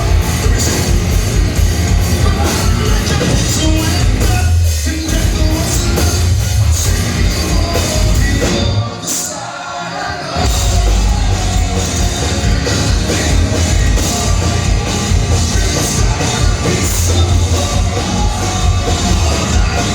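Live heavy rock band playing loud distorted guitars, bass and drums with singing, heard through a phone-style concert recording. The low end drops out briefly about halfway through, then the full band crashes back in.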